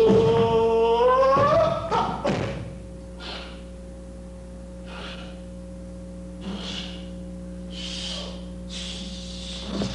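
A man's voice chanting a drawn-out count, held and rising in pitch for about the first two seconds, then a couple of thuds. After that, only faint short hisses over a steady hum of old film sound.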